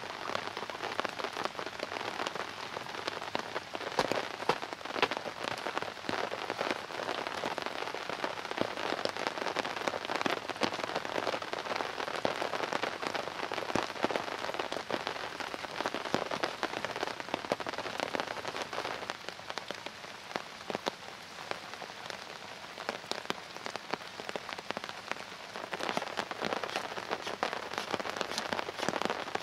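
Steady rain falling, a dense patter of drop hits, easing a little past the middle and picking up again near the end.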